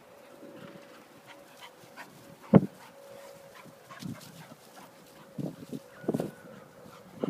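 Cocker spaniel making a few short, separate noises as it plays on the grass, the loudest and sharpest about two and a half seconds in, with smaller ones later on.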